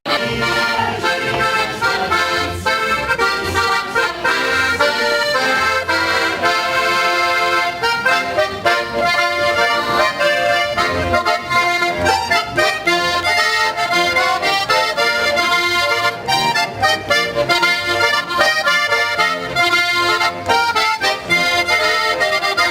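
Button box (diatonic button accordion) music playing continuously over a steady, regular bass beat.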